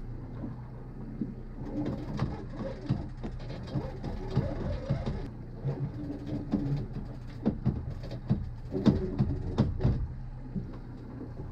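Boat motor running with a low, steady hum, over irregular knocks and clatter from handling gear on the boat.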